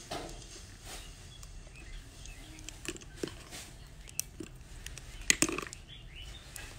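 Small clicks and knocks of a lipstick tube, a perfume bottle and their cardboard gift box being handled, with the loudest cluster of clicks about five seconds in.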